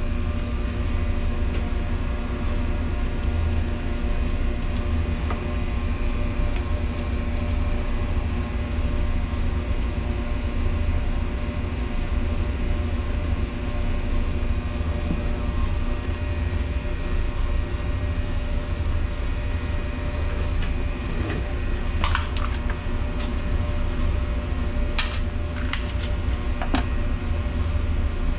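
Steady low machine hum and rumble of background equipment, with a few short metallic clicks about 22, 25 and 27 seconds in as bolts are fitted on the commercial dishwasher.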